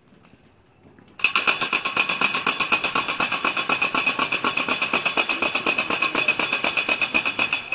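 Percussion rolling in a fast, even rattle of about ten strokes a second with a metallic ring. It starts about a second in and cuts off suddenly near the end.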